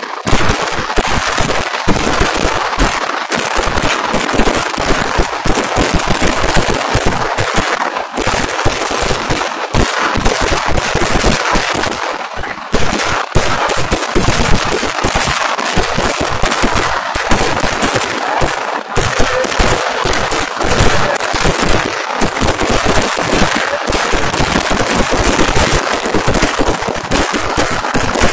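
Kerala vedikettu fireworks going off in a dense, continuous barrage, the sharp bangs of the firecrackers following so closely that they merge into a constant rattling crackle.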